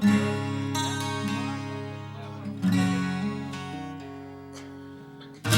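Acoustic guitar strumming chords that are left to ring and fade. One chord comes at the start, another about two and a half seconds later, and a third right at the end.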